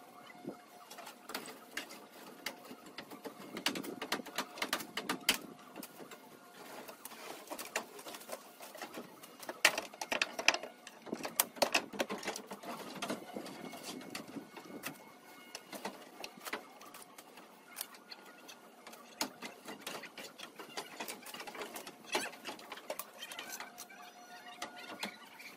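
Irregular snapping, crackling and knocking of branches and brush being cut and pulled apart by hand, busiest about ten seconds in.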